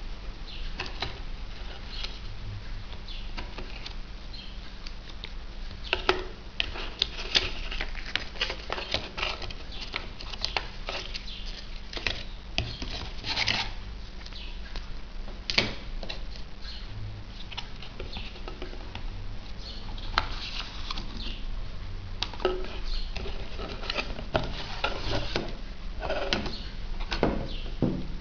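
Cardboard packaging and a paper manual being handled: irregular rustling, scraping and small taps of cardboard flaps and paper, with a steady low hum underneath.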